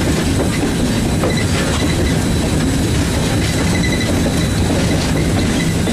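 Steady running noise inside the cab of steam locomotive No. 630, a 2-8-0, under way: a loud, unbroken din of wheels on the rails and the rattle of the engine.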